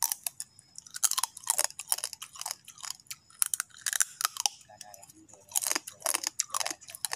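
A man chewing a raw, live freshwater crab, the shell crunching in his mouth in many short, irregular, crisp crunches.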